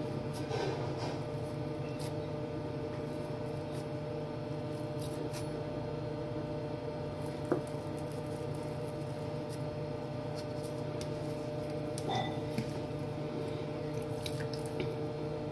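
A kitchen knife pressing down through a slab of chicken mince onto a silicone mat: soft squishing cuts and light taps, with one sharper click about seven and a half seconds in. A steady hum runs underneath.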